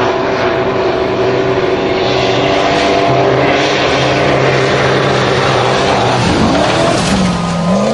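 Formula Offroad buggy's engine running hard at steady high revs as it skims across water, over the heavy hiss of spray thrown up by its tyres. The engine note falls away from about six seconds in.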